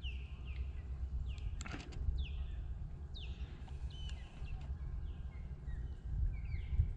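North American ospreys calling: a steady run of short, high whistles, each sliding down in pitch, about one or two a second, over a low rumble of wind. A single sharp click comes a little under two seconds in.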